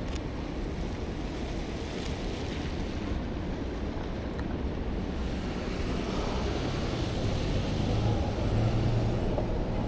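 City street traffic rumble, with one vehicle's engine hum growing louder about eight seconds in.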